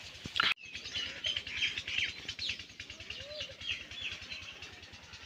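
Small birds chirping in many short, high calls, scattered and overlapping.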